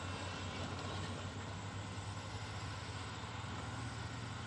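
Diesel engine of a Hyundai crawler excavator running steadily, a low even hum, as the machine works.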